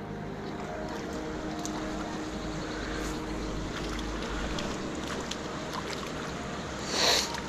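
Shallow rocky river flowing steadily, with wind on the microphone, and a brief louder rush of noise near the end.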